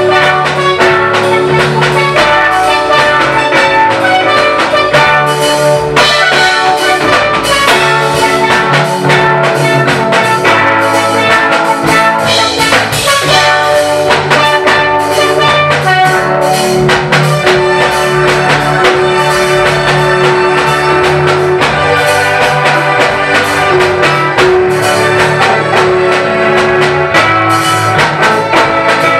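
Loud instrumental music with a steady beat and brass-like melody lines, with no singing.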